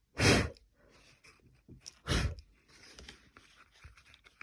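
Two short, hard puffs of breath blown onto drops of wet watercolour on paper, about two seconds apart, spreading the drops into blots.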